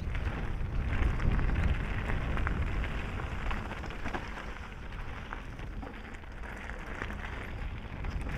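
Mountain bike tyres rolling over gravel singletrack: a steady crunching hiss with scattered clicks and rattles, over low rumbling wind noise on the camera microphone, loudest about a second in.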